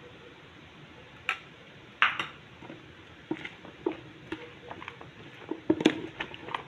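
Metal spoon stirring chickpea chaat in a plastic container: irregular knocks and clacks of the spoon against the container, coming closer together near the end.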